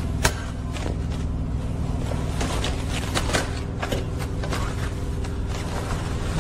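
Bungee straps with metal hooks clicking and rattling against a flatbed trailer's steel rail as they are hooked on over a tarp, the sharpest snap about a quarter second in, over a truck engine idling steadily.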